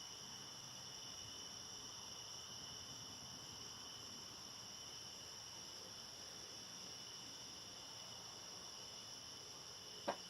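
Steady chorus of crickets, a continuous high-pitched trilling. It has a single short click near the end.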